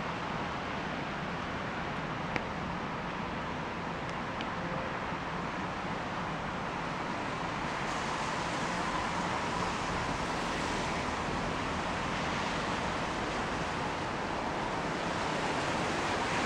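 Steady outdoor background noise: an even hiss of urban ambience that swells slightly near the end, with a single faint click a little over two seconds in.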